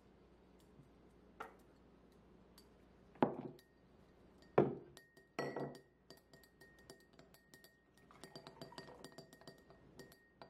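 Glassware clinking: a glass measuring cup and drinking glasses knocked against each other and the countertop, several sharp knocks with a short ring in the first half. Then water is poured from the measuring cup into a glass of boba, with quick light clinks and a faint steady high tone.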